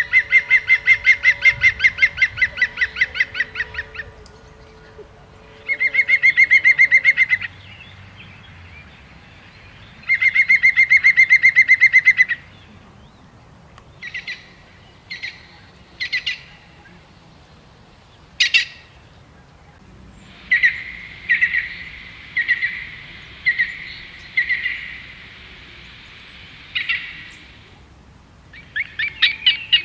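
A bird singing loud, fast trills of rapidly repeated notes, each trill lasting a few seconds, with short single call notes in between and a longer, buzzier trill later on.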